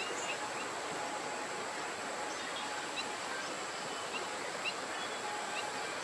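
Outdoor wetland ambience: a steady wash of noise with many short, faint bird chirps scattered throughout, over a thin steady high-pitched tone.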